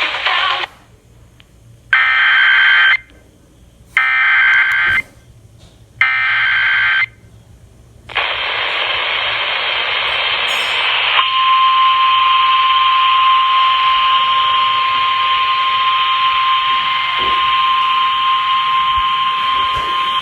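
Emergency Alert System alert heard through a radio receiver: three one-second bursts of SAME header data tones, two seconds apart, followed by a hiss, then the single steady 1050 Hz warning alarm tone of NOAA Weather Radio starting about 11 seconds in.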